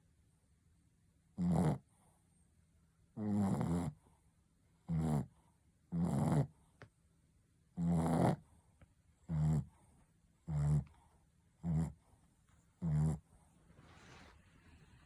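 A Shih Tzu snoring in its sleep: about nine short, separate snores, one every one to two seconds, coming a little faster in the second half.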